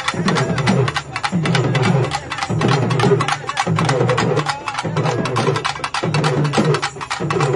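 A troupe of double-headed barrel drums (Tamil processional drums) struck rapidly with sticks in a fast, dense rhythm, with a low pitched drone swelling about once a second.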